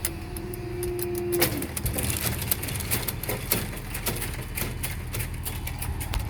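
Irregular clicks and small knocks, like a camera being handled and fixed in place, over a low steady rumble. A steady pitched tone cuts off about a second and a half in.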